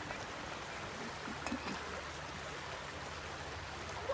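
The Big Sur River flowing: a steady rush of running water, with a couple of faint light knocks about a second and a half in.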